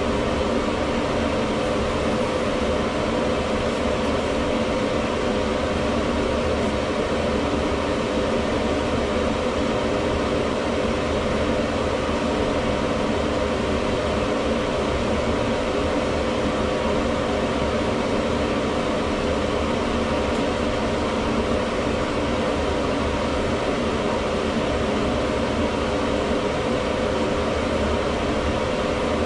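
Home-built HEPA air filtration unit running steadily: its 8-inch inline duct fan pulling air through a 6-inch flexible duct and HEPA filter, a constant rush of air with a steady mid-pitched hum.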